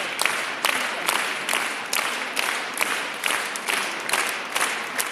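Hall audience applauding in unison, a steady rhythm of a little over two claps a second over a wash of scattered clapping.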